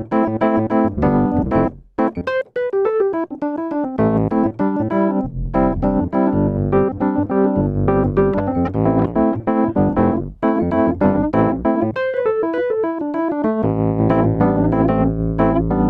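Spectrasonics Keyscape sampled keyboard playing a piano-type patch: chords over a low bass line with quick melodic runs, briefly pausing about two seconds in and again near ten seconds.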